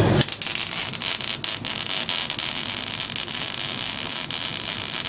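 Wire-feed welding arc on steel horseshoes: a steady crackling hiss with irregular sharp pops, striking up about a quarter second in.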